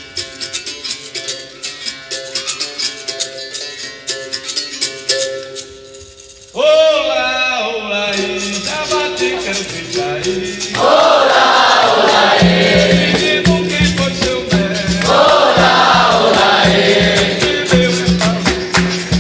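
Capoeira music: a berimbau with a rapidly shaken caxixi rattle. A solo singer comes in about six seconds in, a chorus answers a few seconds later, and a steady drum beat joins shortly after.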